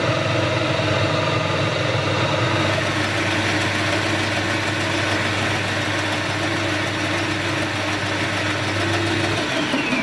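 Metal lathe running under power, turning a skim off the outside of a collet chuck held against a live centre: a steady motor and gear hum with a hiss from the cut. The low hum stops about nine and a half seconds in, and the machine winds down with a falling whine near the end.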